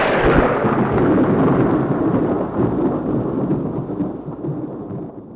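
A sudden loud crack that turns into a long rolling rumble, fading slowly over about five seconds before it cuts off, like a thunderclap.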